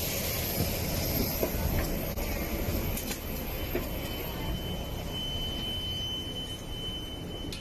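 Steady low rumble and hiss of airliner and jet-bridge machinery at the aircraft door. A thin, steady high whine joins about halfway through.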